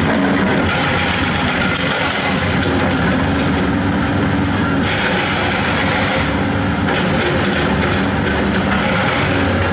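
Diesel engines of Komatsu crawler excavators running steadily together, a constant low engine hum.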